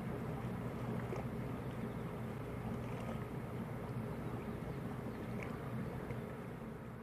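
Steady low drone of a 65 m car ferry's engines and propellers as it heads away, over the wash of its wake.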